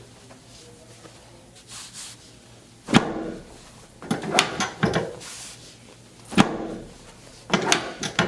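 Chiropractic treatment table knocking and clunking during a sacrum adjustment: a series of sharp knocks and thuds, some single and some in quick clusters of two or three.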